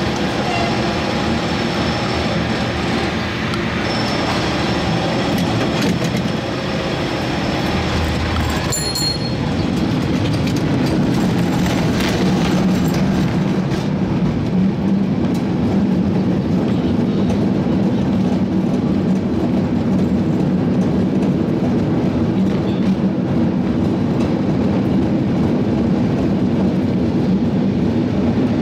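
San Francisco cable car running on its rails: a steady rumble and rattle of the car on the track, pulled along by the cable that runs in the slot under the street. There are a few clanks around nine and twelve seconds in, with a short high-pitched squeal near the first.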